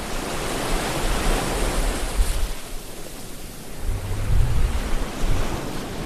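Water splashing and rushing past a one-man outrigger canoe's hull close to the camera, loudest in the first two seconds or so, with a low rumble coming in about four seconds in.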